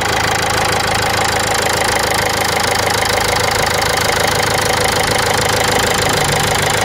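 Common-rail diesel car engine idling steadily and evenly, its sound now normal with the fuel rail pressure sensor fault dealt with.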